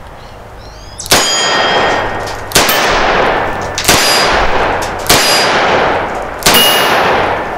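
Five shots from a Taurus Defender 605 five-shot revolver with a 3-inch barrel, firing full-power .357 Magnum 158-grain jacketed hollow point loads. The shots are evenly spaced about a second and a half apart, each with a long ringing tail, emptying the cylinder.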